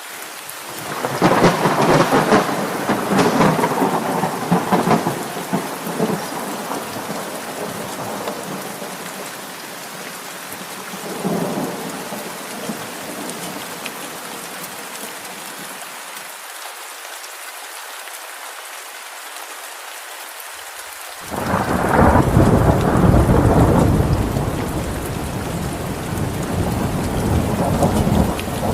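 Steady rain falling, with thunder rolling over it. There is a long rumble from about a second in, a short one near the middle, and a louder deep rumble that breaks in suddenly about three-quarters of the way through.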